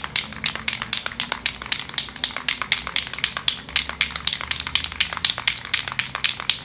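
Aerosol spray-paint can being shaken, its mixing ball rattling in a quick, steady run of clicks as the paint is mixed before the next coat.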